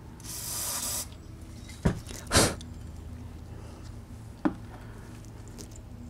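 Aerosol spray can with a straw hissing in a burst of just under a second, then a shorter squirt about two seconds in, with a couple of light clicks of parts being handled.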